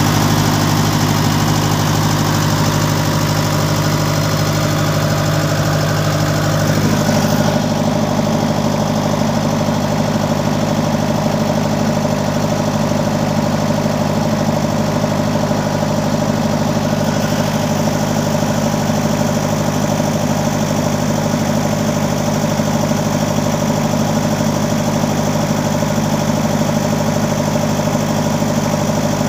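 Diesel engine of a yellow earthmoving machine running steadily at close range, a loud, even drone. Its note shifts slightly about seven seconds in.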